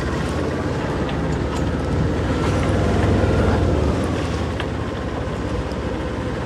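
A sailing yacht's small inboard engine running at low revs, a steady pulsing rumble that swells briefly a couple of seconds in, under wind noise on the microphone.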